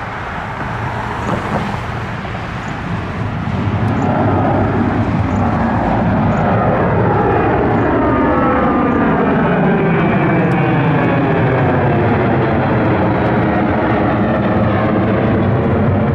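Airliner's engines passing close, growing louder about four seconds in and then holding loud, with a hollow sweeping tone that shifts in pitch as the aircraft goes by.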